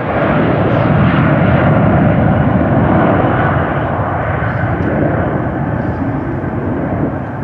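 Twin-engine jet airliner's turbofan engines running loud as it moves along the runway: a steady roar that swells just after the start, stays loudest for about three seconds, then slowly eases off.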